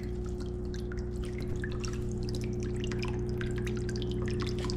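Water dripping and trickling in a turtle tank: many small irregular drips over a steady mechanical hum.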